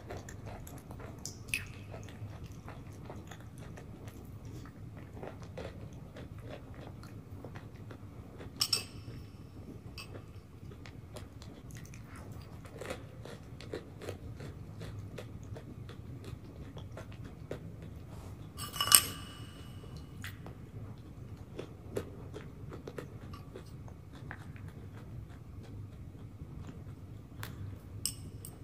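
Close-miked mouth sounds of someone eating yogurt off a spoon: soft, wet lip smacks and small clicks. A few sharper clinks with a short ring stand out, the loudest about two-thirds of the way through.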